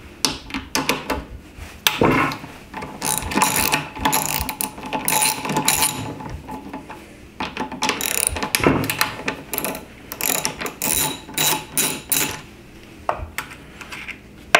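A socket ratchet clicking in repeated quick runs, with short pauses, as it backs off the 10 mm nuts holding an engine's air box.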